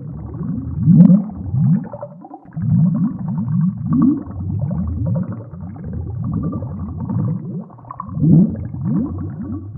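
Air bubbles rising through water, gurgling: an unbroken stream of low, muffled blips, each rising a little in pitch, about three or four a second.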